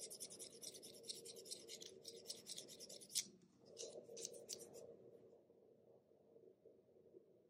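Snap-off utility knife blade shaving the tip of a Faber-Castell 9000 HB graphite pencil in quick, quiet scraping strokes, about five a second. About three seconds in there is one sharp click, followed by a few scattered scrapes, and the sound dies away after about five seconds.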